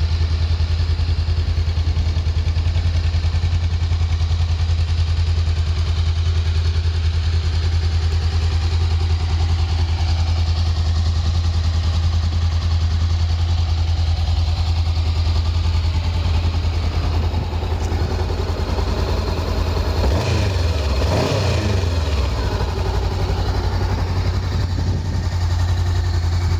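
Honda CBR500R's parallel-twin engine idling steadily, with a brief rise and fall in pitch about twenty seconds in.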